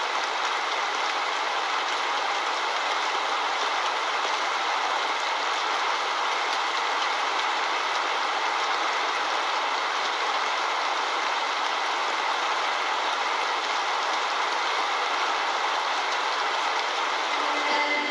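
Steady rainfall, an even unbroken hiss.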